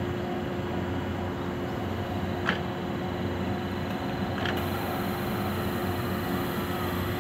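Steady electrical hum of a red Nanao Line electric multiple unit standing at the platform, its onboard auxiliary equipment and fans running. A short click comes about two and a half seconds in, another a little after four seconds, and then a high hiss sets in.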